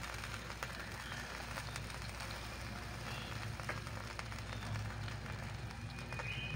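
Skewered barbecue chicken sizzling on an electric grill, with a steady hiss and many small scattered crackles.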